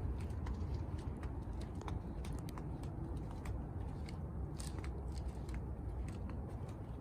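Cats chewing and crunching food: an irregular scatter of small sharp clicks over a steady low rumble.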